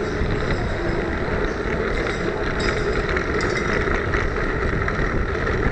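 Steady rush of wind and road noise on a keycam mounted on a Brompton folding bike being ridden at race speed.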